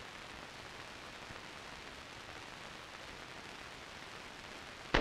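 Steady hiss, then a single sharp rifle shot right at the end, much louder than the hiss.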